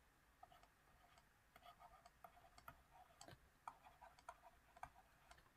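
Near silence broken by faint, light ticks of a stylus tapping on a tablet screen while words are handwritten, scattered irregularly through the second half.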